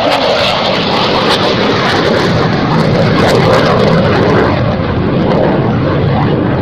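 Belgian F-16 fighter jet flying past, its jet engine giving a loud, steady noise.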